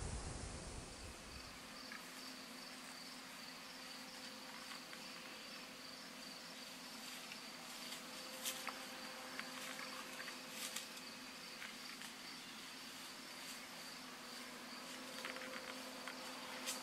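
Insects trilling steadily in a high, evenly pulsing chorus, over a faint low hum. A few light clicks come about eight and eleven seconds in.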